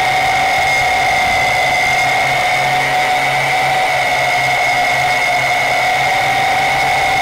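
Yizhan Tarantula X6 quadcopter's four motors and propellers in flight, a loud, steady high whine with little change in pitch, heard close up from the camera mounted on the drone.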